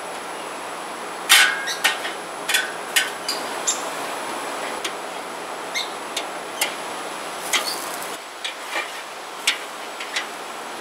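Metal tongs clinking and scraping against a kettle grill's grate as burgers and tomato slices are moved, a dozen or more sharp, irregular clinks over a steady sizzling hiss.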